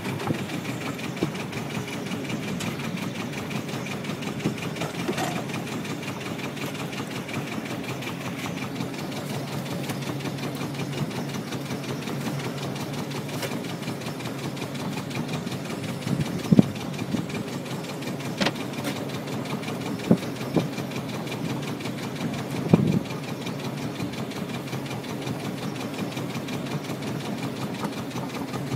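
A small fishing boat's engine running steadily, with a handful of sharp knocks in the second half.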